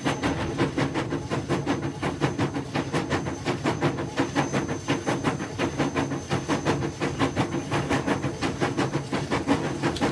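Motorised LEGO model train running on plastic track: a steady motor hum with fast, even clicking of the wheels over the track joints.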